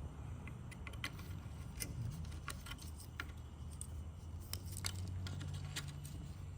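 Scattered small clicks and rattles of a replacement plastic alternator wiring-harness plug and its wires being handled, over a steady low hum.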